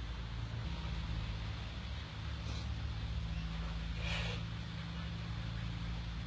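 A steady low hum, with a brief splash about four seconds in as a Sumatran tiger lunges through pond water.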